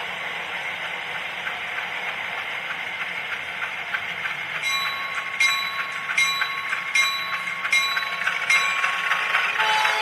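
A DCC sound decoder in a model diesel locomotive plays a steady engine and running sound through its small speaker. From about halfway, the locomotive bell rings six times at an even pace, and a chord horn starts to sound near the end.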